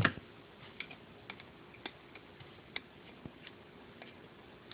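Small, sharp clicks and ticks of a nut and bolt being handled by hand while the nut is fitted onto the bolt of a Mantis tiller's throttle trigger. There is one louder click at the start, then faint, irregular clicks.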